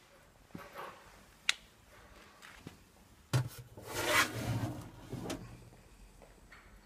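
Sheet-metal storage drawer in the base of a Viadrus Hercules DUO boiler being pulled open by hand: a knock, then about a second and a half of metal scraping as it slides out. There is a sharp click earlier.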